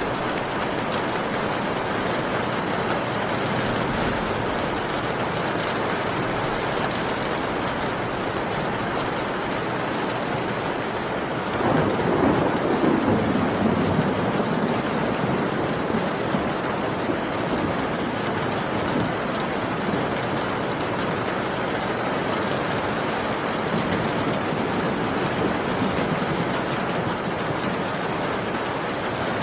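Steady rain falling, with a roll of thunder about twelve seconds in that rumbles for a few seconds and dies away.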